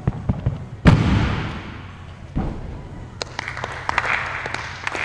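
A gymnast's running footsteps end about a second in with a loud impact, typical of a take-off or landing on the apparatus and mats, that rings out through the hall. A lighter thud follows a second and a half later, then scattered knocks and clicks of training.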